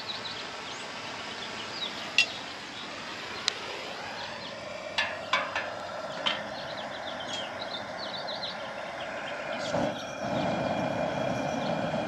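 Propane burner under a pot of water being lit with a handheld lighter: a few sharp clicks, then about ten seconds in the burner catches and a steady rushing flame noise starts and holds. Birds chirp faintly in the background.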